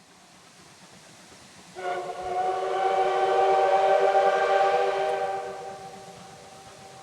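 Steam whistle of the JNR Class C10 tank locomotive C10 8, running light: one long steady blast of about four seconds, starting about two seconds in, over a low rushing running noise.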